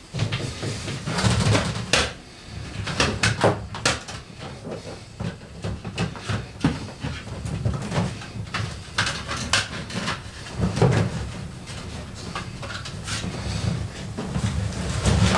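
Irregular clicks, knocks and rustling of cables and equipment being handled behind a TV and media cabinet while network cables are unplugged and replugged.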